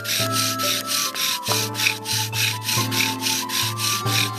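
Wooden fire-drill spindle rubbing rhythmically in a wooden fireboard, about four strokes a second, as the board smokes on its way to an ember.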